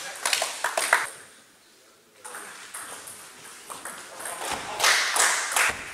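Table tennis ball clicking sharply off the bats and the table. There are quick hits, then a lull of about a second, then a rally with the hits growing louder toward the end.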